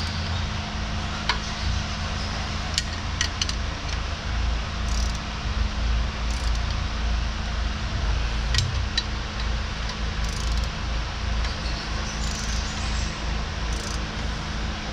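A few scattered metallic clicks and clinks of a hand wrench working the bolts of a tractor's front-end-loader bracket, over a steady low hum and rush of shop machinery noise.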